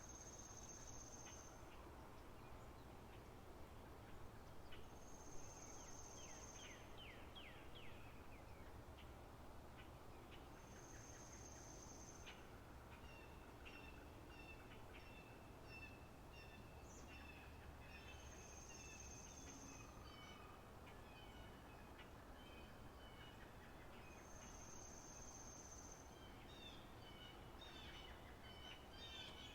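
Faint birdsong ambience of a spring meadow. A high, thin whistled note is held for about a second and a half and recurs every six seconds or so. From about halfway through, other birds join in with quick, rhythmic series of chirps.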